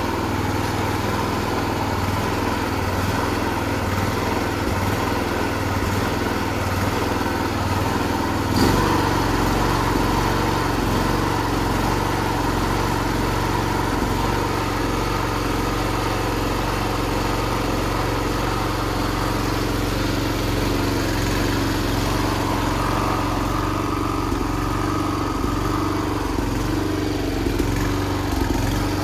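Small engine running steadily, with a sharp knock about eight and a half seconds in, after which the engine note changes.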